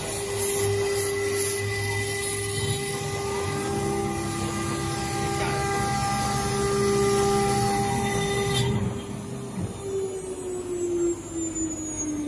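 UPGOAL UG-1325 CNC wood router running, its spindle giving a steady whine over a noisy wash. About nine seconds in, the noise drops away and the spindle's whine falls steadily in pitch as it slows.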